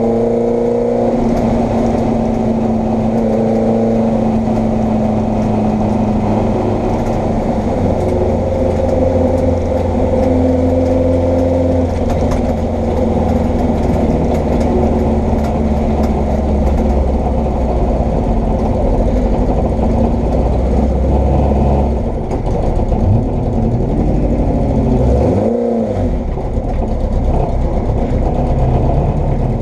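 Vauxhall Firenza racing saloon's engine heard from inside the cabin, running at low, even revs while the car is driven slowly. Near the end the revs rise and fall a few times, then settle to a low idle.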